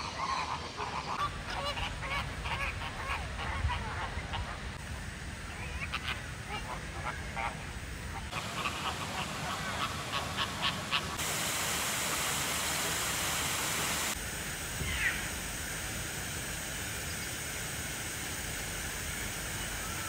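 A flock of flamingos honking and gabbling, with calls coming thick and fast through the first half and only one more call later. A steady hiss fills a few seconds in the middle.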